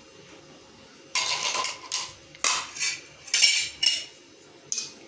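Aluminium pan being handled and set onto a gas stove's metal burner grate, with four scraping, clattering metal sounds starting about a second in.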